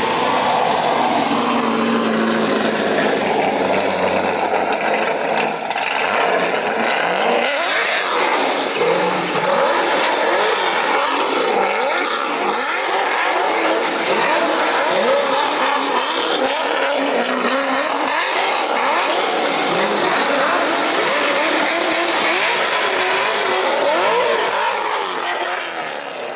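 C6 Chevrolet Corvette V8 revved hard again and again, rising and falling in pitch, with its tyres squealing as it slides through a turn. The sound fades as the car pulls away near the end.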